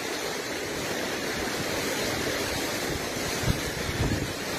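Strong gale-force wind blowing steadily, with gusts buffeting the microphone as low thumps, the strongest about three and a half and four seconds in.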